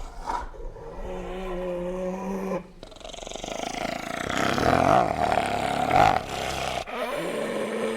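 Animal vocal sound effects: a steady pitched call lasting about two and a half seconds, then a longer harsh, rasping growl that grows louder for about four seconds, then another pitched call starting near the end.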